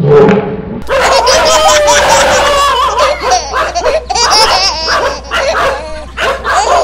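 Dogs barking at a stuffed toy tiger dangled in front of them, mixed with laughter. The barking and laughing start about a second in and keep on in a dense, uneven run.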